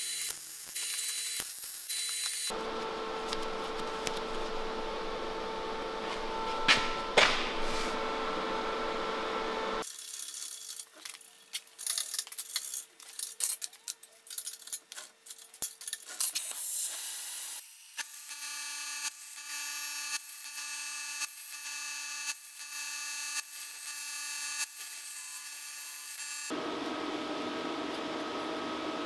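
Workshop sounds from a motorcycle frame build: a stretch of steady machine noise with a steady hum, then scattered metallic clicks and knocks of parts and tools being handled, then a run of evenly repeating pulses, and steady noise again near the end.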